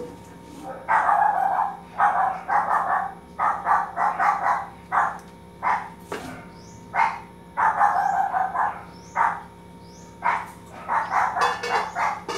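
A dog barking over and over in quick runs of short barks, several a second, with pauses between the runs. Now and then dishes clink.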